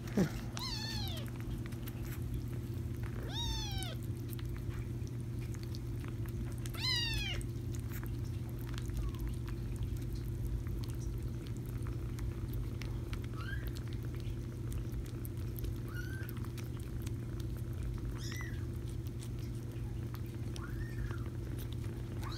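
Young kittens meowing: a meow right at the start, two more loud rising-and-falling meows about 3.5 and 7 seconds in, then several fainter, shorter mews through the second half, over a steady low hum.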